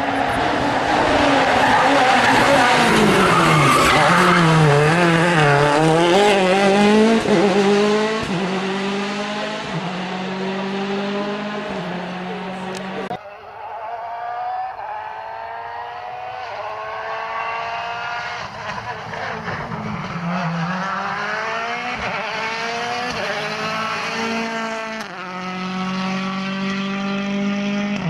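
Rally car engine at full stage speed, revving hard with rapid rises and falls in pitch as it passes close. After a cut about 13 s in, a rally car is heard at a distance, its engine note climbing again and again as it accelerates up through the gears.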